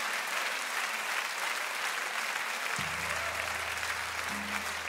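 Concert audience applauding between songs. About three seconds in, a low steady tone comes in underneath the clapping.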